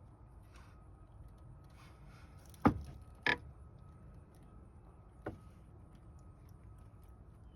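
Clanks of hand tools or car parts being handled during repair work: one sharp knock, a shorter clack about half a second later, and a faint click a couple of seconds after, over a low steady hum.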